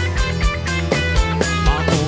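Live band playing an upbeat number: a drum kit keeping a steady beat under bass, electric guitar and keyboard.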